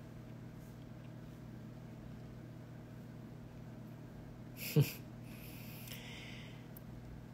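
Faint steady low hum of room tone. About five seconds in it is broken by a short exhaled laugh through the nose, followed by a soft breath lasting about a second.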